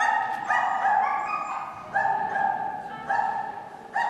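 Shetland sheepdog barking on an agility course: about seven high-pitched barks in quick succession, some in pairs.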